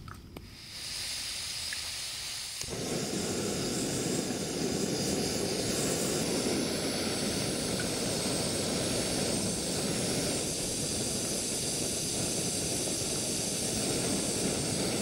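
Small gas-canister backpacking stove burning: a thin hiss of gas starts just after it is lit, and about three seconds in it swells into a louder, fuller, steady rushing of the burner flame.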